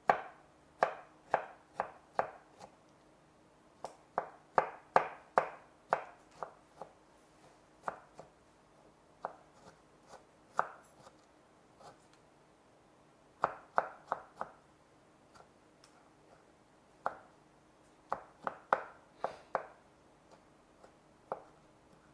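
Kitchen knife chopping on a cutting board in short runs of quick strokes with brief pauses between them, over a faint steady hum.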